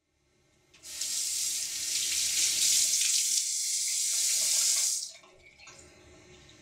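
Bathroom sink tap running in a steady loud rush, which starts about a second in and is turned off about five seconds in.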